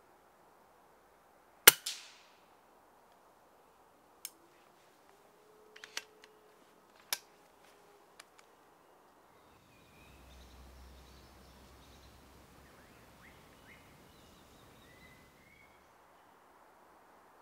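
A single shot from a silenced FX Impact Mark II PCP air rifle about two seconds in: a sharp crack with a quick second smack just after it. Over the next few seconds come several lighter metallic clicks, the sound of the rifle's action being handled.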